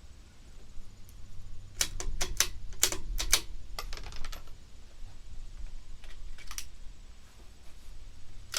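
Bolt of a CZ 457 bolt-action .22 rimfire rifle being worked by hand: a quick run of sharp metallic clicks about two seconds in, then a few fainter clicks later, as a case that failed to extract is cleared.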